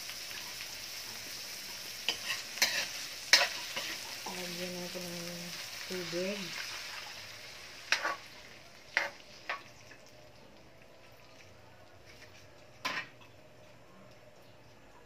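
Vegetables sizzling in oil in a metal wok while a metal ladle stirs them, with sharp clinks of the ladle against the pan. About halfway through, the sizzle fades as liquid is poured in, and a few separate ladle clinks follow in the quieter simmering liquid.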